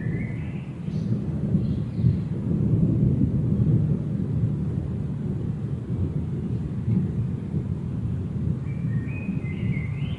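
A continuous low, thunder-like rumble that swells a couple of seconds in and then holds steady. It is the unexplained 'strange thunder noise'. Birds chirp briefly at the start and again near the end.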